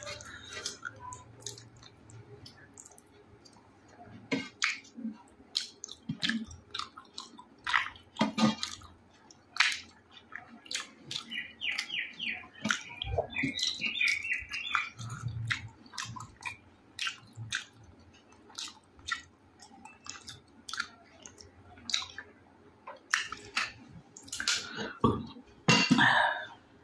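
Close-miked eating sounds: wet chewing and lip smacks with many sharp irregular clicks, from a person eating rice with chicken curry. A louder wet burst comes near the end.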